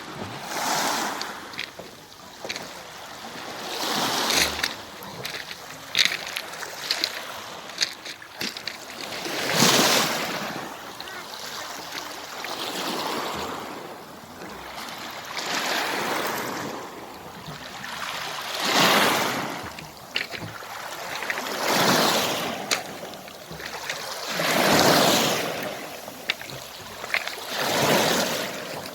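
Sea waves breaking on the shore one after another, each wash of surf swelling and fading about every three seconds, with a few brief clicks in between.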